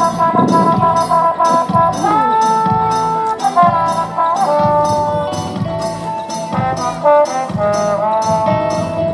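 Background music: long held, horn-like notes that change pitch every second or two over a steady beat of about three a second.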